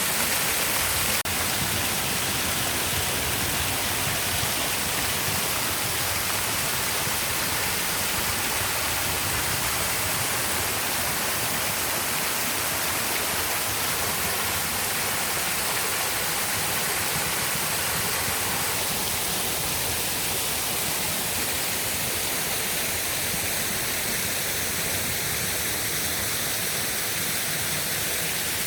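Steady, even rushing of water, like a waterfall or a stream, with no breaks. A fainter, higher layer comes in a little past the middle.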